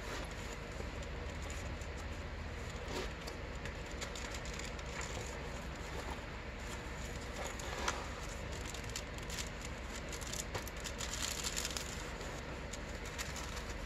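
Cardstock pages and flaps of a handmade paper journal folio rustling, with light taps and clicks as it is folded shut, turned and opened again, over a steady low hum. A denser rustle comes about eleven seconds in as the folio is opened out.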